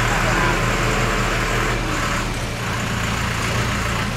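Heavy diesel machinery engine running with a steady low drone, as a loaded truck maneuvers at an excavation site.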